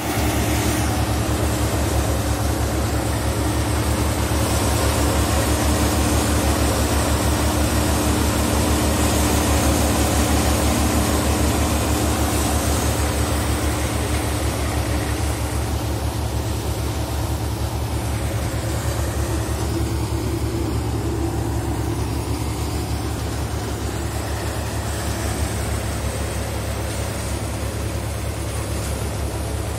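Tractor-driven Harnam multi-crop thresher (4-fan model) running steadily while threshing urad: a constant low engine hum from the tractor driving it, mixed with the rushing of the threshing drum and fans blowing straw and chaff out of the chute.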